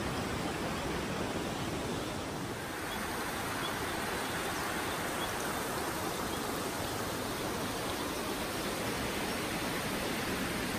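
Steady rush of a stream and stepped cascade tumbling over rocks.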